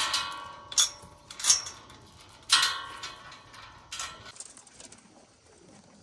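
Steel pipe corral fencing clanking: five sharp metal knocks over about four seconds, each ringing on briefly, then it goes quiet.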